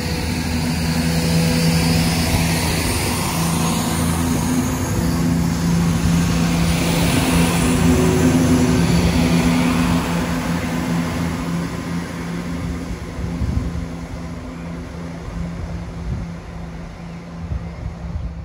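A vehicle engine running with a steady low hum over a broad rush of noise, getting gradually quieter over the second half.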